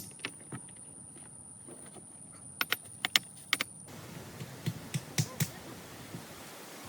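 Scattered sharp clicks and knocks, with a quick run of them about three seconds in, then a few duller, heavier knocks.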